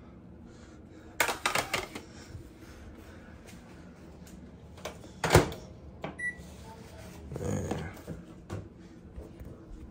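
Microwave oven and dishes being handled: clattering about a second in, a sharp clunk about five seconds in, then a single short beep.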